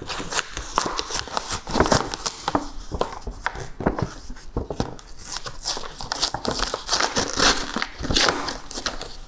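Stiff paper packaging crinkling and rustling in irregular crackles as a folded-top paper bag is pulled open by hand.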